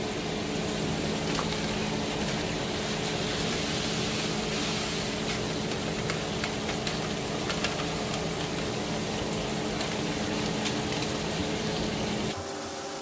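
Pots on an electric stovetop bubbling and sizzling: an even hiss with scattered crackles, over a steady low hum. It drops abruptly quieter near the end.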